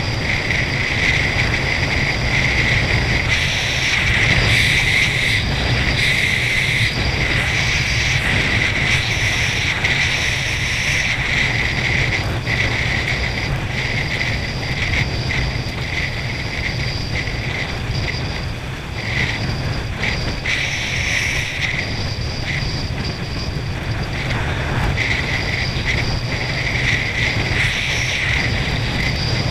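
Constant rush of wind and water as a water skier is towed at high speed behind a boat, heard from a camera on the skier. The noise holds steady, with a brief lull about two-thirds of the way through.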